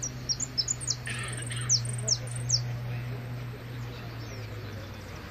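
A saffron finch (jilguero) singing its 'repique': about ten sharp, high, downslurred notes in quick succession over the first two and a half seconds. A low steady hum runs underneath.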